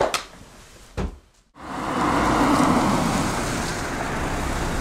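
A couple of short knocks, then after a brief hush a compact sedan driving slowly by, with a steady rush of road and engine noise.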